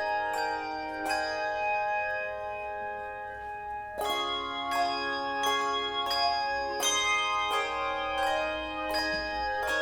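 Tuned bells playing music: chords and single notes struck every half second to a second, each left to ring on.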